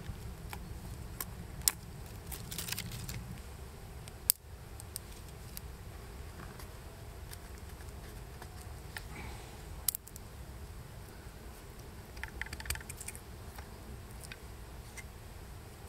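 Handwork on small thorny twigs, likely cutting and carving thorns with a knife: scattered light clicks and scrapes, with three sharper snaps, over a low steady rumble.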